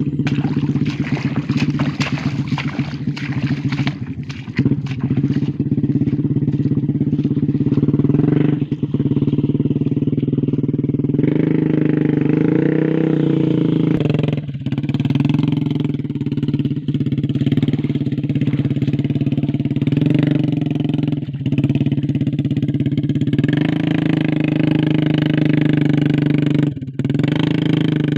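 Motorcycle engine of a taksi gabah, a motorbike modified for hauling rice sacks, running at a fairly steady pitch with a few momentary dips and small changes in speed.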